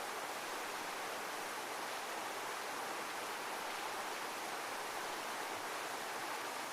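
Heavy waterfall: a steady, unbroken rush of falling water, an even hiss with no rise and fall.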